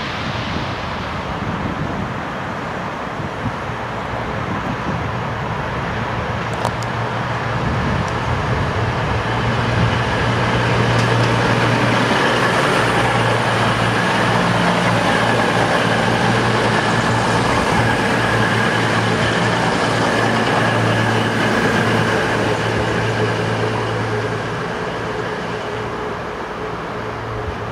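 CrossCountry Voyager diesel multiple unit passing through, its underfloor diesel engines making a steady low hum that swells as the carriages go by and eases off near the end as the train moves away.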